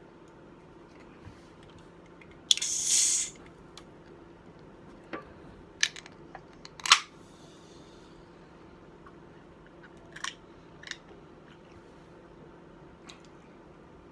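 Sparse eating noises at close range: a short rustling burst about two and a half seconds in, then a handful of sharp mouth clicks and smacks, over a faint steady hum.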